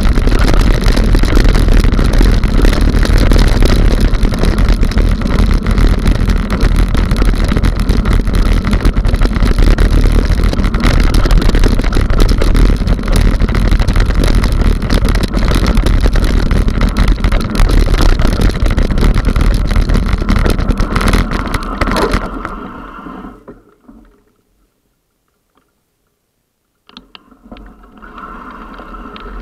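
Mountain bike riding fast over a gravel trail: steady wind on the microphone with tyre rumble and rattle. The noise fades out a little after twenty seconds, drops to near silence for a few seconds, then comes back more quietly near the end.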